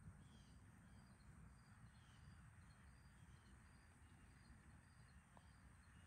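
Near silence: faint outdoor ambience with a soft, high chirping repeating evenly about twice a second, as of insects or birds, over a low rumble.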